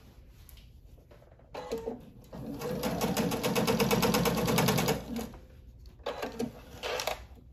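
Domestic sewing machine stitching a seam through fabric and quilt batting: it starts about a second and a half in, runs at speed with a fast, even needle rattle and a steady hum for a few seconds, then stops. Softer fabric-handling sounds follow.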